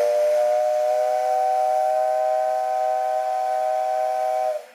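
Steam whistle of JR Kyushu 8620-class steam locomotive 58654 held in one long, steady blast, a chord of several tones, sounded as the train departs. It dips slightly in pitch and cuts off sharply near the end.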